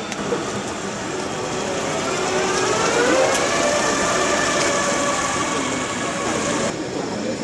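New Holland NH2 hydrogen fuel cell tractor running with an electric whine: several tones rise together in pitch about two seconds in, then hold steady.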